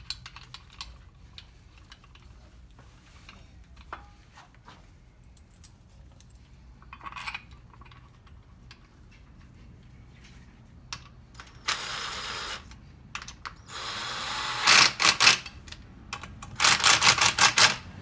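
Ratchet wrench tightening the kit bolts of a shifter mount bracket on a transmission: light clinks of bolts and tools at first, then runs of rapid ratchet clicking in the second half, loudest near the end as the bracket is drawn firm.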